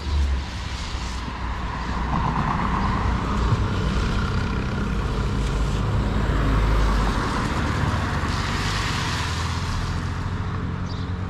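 Road traffic: motor vehicles passing, engine and tyre noise swelling about two seconds in and again for a few seconds in the middle.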